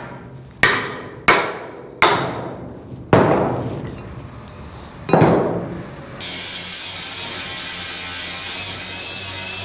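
Hammer striking the steel flatbed frame five times, each blow ringing out. About six seconds in, an angle grinder starts and runs steadily with a high whine, grinding old welds off the steel.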